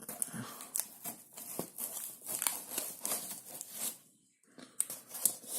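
Packaging being handled and torn open during an unboxing: a quick irregular run of crinkles and rips, broken by a short silence about four seconds in.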